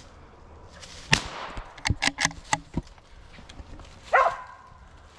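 A single gunshot about a second in, aimed up into a tree at a squirrel, followed by a quick run of sharp clicks and rattles. Near the end a mountain feist squirrel dog gives a bark at the tree.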